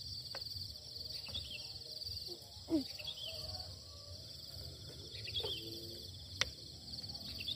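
Insects chirring steadily in a high, pulsing drone, with short falling bird chirps now and then and a sharp click about six seconds in.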